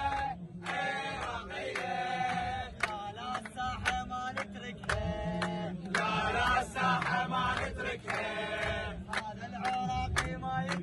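A group of young men chanting a song together in unison, with hand claps keeping time.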